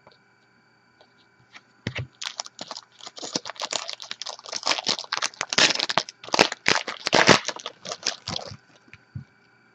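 Trading-card pack wrapper crinkling as it is handled and torn open: a dense run of crackly rustles starting about two seconds in and lasting about six seconds.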